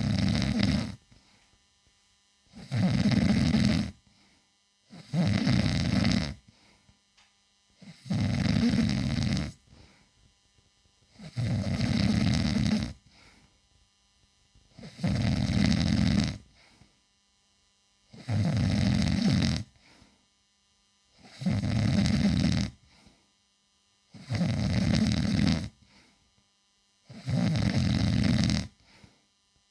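A man snoring loudly: about ten snores, one roughly every three seconds, each lasting about a second and a half, with near silence between them.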